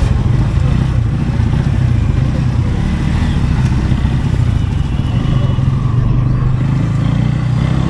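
A Bajaj Pulsar N160's single-cylinder engine running steadily at low revs, a constant low rumble as the motorcycle idles and rolls off slowly.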